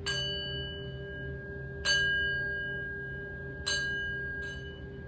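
A bright metal chime struck four times, each strike ringing on in clear high tones that fade slowly; the second strike is the loudest, and the last two come less than a second apart, the last one softer. A low steady hum lies beneath.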